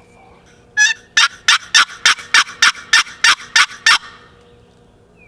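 Turkey yelping: a run of about eleven loud, evenly spaced yelps, about three a second, lasting around three seconds.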